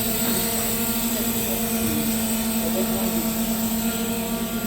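Industrial NC metal-cutting bandsaws running, a steady mechanical drone with a strong, even hum.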